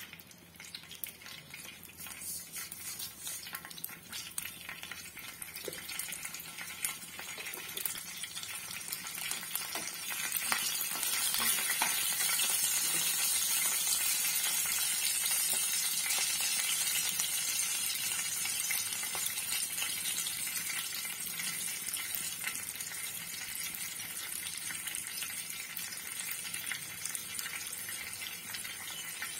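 Nigella seeds and two green chillies sizzling in hot mustard oil in a frying pan: the tempering (phoron) frying, with fine crackles. The sizzle builds to its loudest about ten seconds in, then slowly eases.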